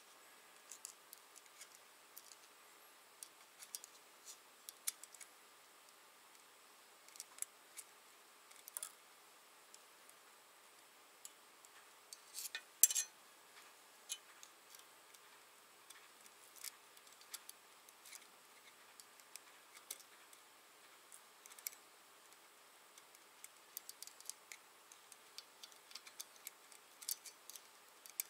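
Light, scattered metallic clicks and ticks as small steel valve keepers are worked into place around a compressed valve stem with a small screwdriver on a 12-valve VR6 cylinder head. A short cluster of louder clicks comes about halfway through.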